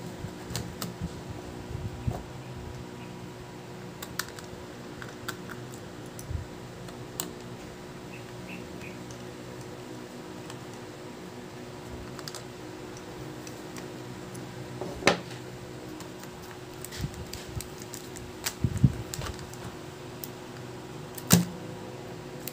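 Small scattered clicks and taps of a screwdriver and fingers on a laptop's plastic and metal underside as the battery screws are undone and the battery is lifted out, with a few louder knocks in the second half. A steady low hum runs underneath.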